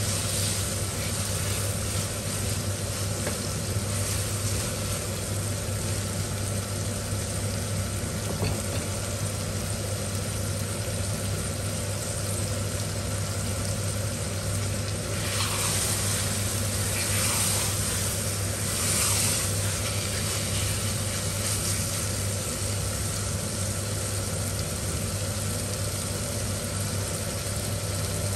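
Goat liver pieces frying in a spiced onion masala in a stainless steel kadai: a steady sizzle, stirred with a spatula at first and then left to fry. There is a steady low hum underneath, and three brief, louder hissing spurts a little past the middle.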